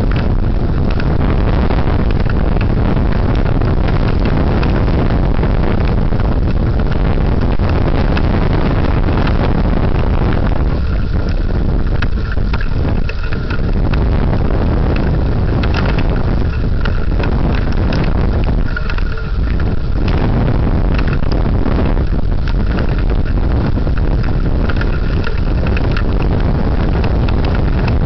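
Thunderstorm wind buffeting the microphone with heavy rain: a loud, steady rush with a deep rumble, easing briefly a couple of times near the middle.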